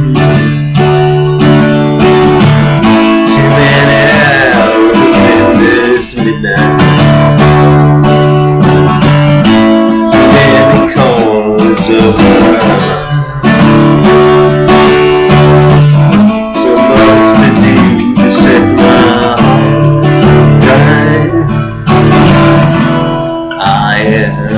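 Acoustic guitar strumming chords in a steady rhythm: an instrumental passage of a song with no singing.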